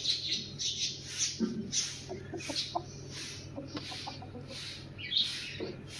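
Chicken clucking: a string of short, low clucks about two to four seconds in, over a high hiss that pulses about twice a second.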